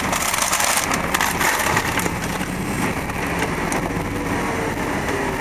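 Paper takeout bag crinkling and rustling in the hands for the first couple of seconds, over the steady running of a car engine and road noise heard from inside the cabin as the car moves off.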